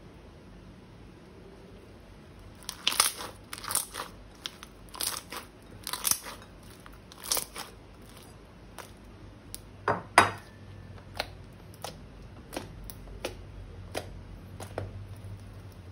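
Crunchy slime being squeezed and worked by hand: after a quiet start, a run of crunching crackles, then scattered sharper pops and clicks, the loudest about ten seconds in.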